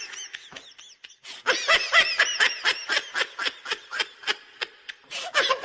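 A high-pitched laugh sound effect: a rapid, even run of short 'heh' bursts at about five a second after a brief pause near the start.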